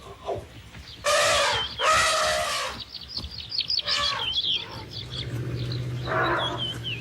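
Elephant trumpeting: two loud blasts back to back about a second in, and another shorter call near the end, with birds chirping quickly throughout.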